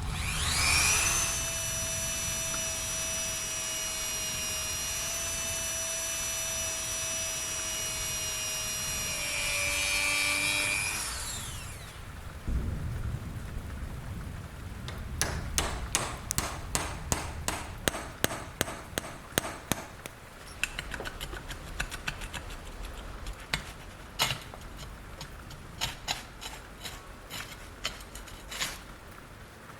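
A small electric power tool spins up with a rising whine, runs at a steady pitch for about ten seconds, then winds down. After a pause comes a long run of sharp, irregular clicks and taps.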